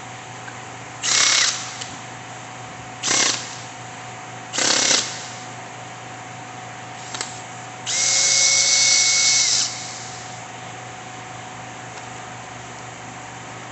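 Handheld power drill run in four short bursts, the last and longest lasting under two seconds, its motor holding a steady whine each time.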